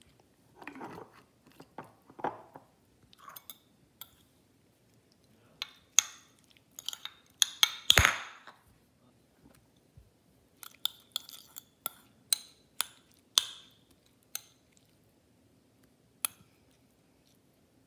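Metal fork clinking and scraping against a ceramic bowl while tossing cucumber noodles, in irregular sharp clinks, with a heavier knock about eight seconds in.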